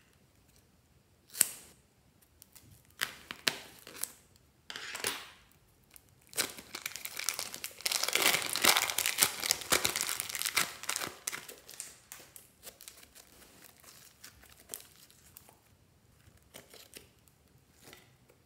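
Thin plastic piping bag crinkling and rustling as it is handled and squeezed to push out thick slime. A few separate crinkles come first, then several seconds of dense crinkling in the middle, then scattered crinkles again.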